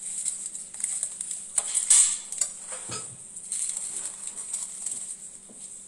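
Knife carving through the crisp skin of a roast Peking duck, giving irregular crackling and crunching, loudest about two seconds in.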